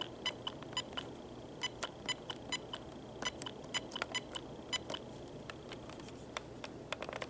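Plastic keypad buttons on an AT&T 4200 cordless phone handset clicking in quick, irregular presses as a number is dialed.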